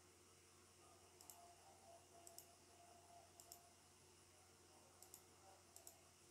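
Computer mouse button clicking about five times, each a quick double tick of press and release, over faint steady room hum.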